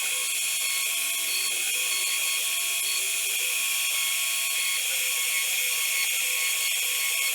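CNC router spindle running at full speed, cutting out a cabinet latch: a steady high-pitched whine, with a fainter lower tone that starts and stops several times.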